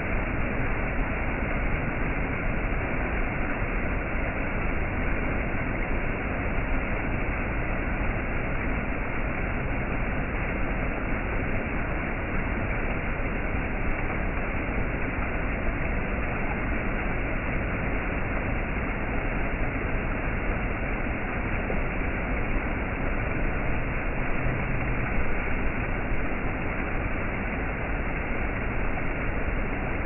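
Steady rushing of a rocky stream spilling over small cascades, an even water noise without breaks.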